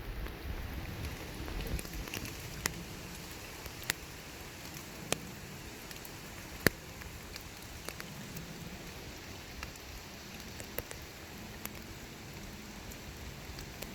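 Water drops falling into still water, single sharp plinks at irregular intervals of about a second, the loudest about six and a half seconds in, over a soft steady low rumble.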